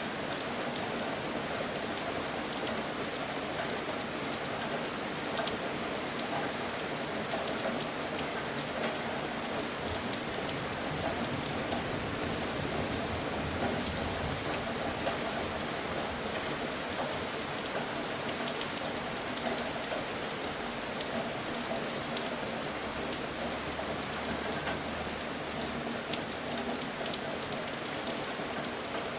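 Steady rain falling, with the fine patter of drops striking a surface.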